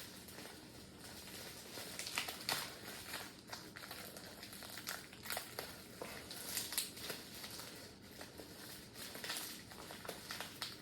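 Packaging being handled by hand: irregular crinkling and rustling of plastic wrap and packing tape, with a few sharper crackles scattered through.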